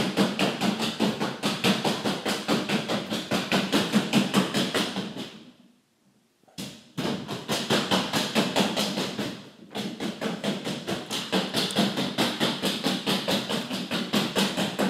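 Rubber punch balloon being punched over and over by hand: a fast, even series of smacks, several a second, that breaks off for about a second and a half near the middle and then resumes.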